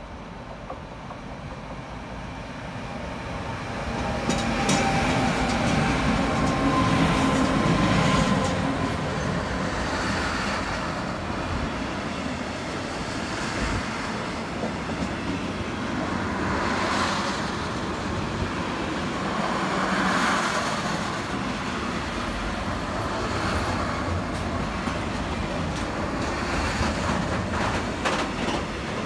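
A train approaching and running past close by, the rumble building over the first few seconds and then carrying on as a long rush of wheels on rails, swelling every few seconds as the cars go by.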